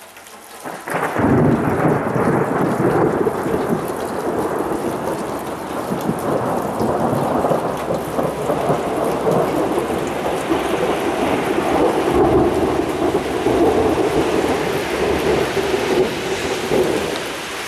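A long roll of thunder. It breaks in suddenly about a second in, rumbles on for many seconds and eases off near the end.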